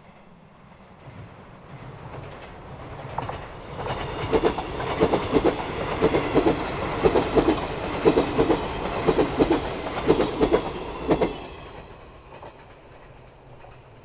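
JR 381 series electric limited express train passing: it grows louder as it approaches, then gives a long run of paired clickety-clack strikes as its wheels cross the rail joints, and fades away after about 12 seconds.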